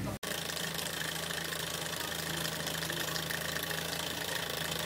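Mamod SR1 live-steam model steam roller running, its small oscillating cylinder chuffing in a fast, even rhythm over a steady hum.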